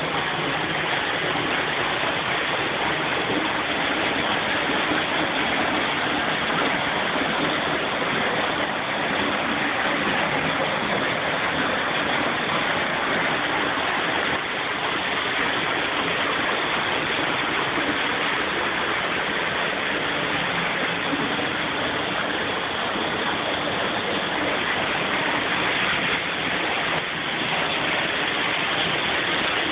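Steady, even rushing noise that holds the same level throughout, with no distinct events.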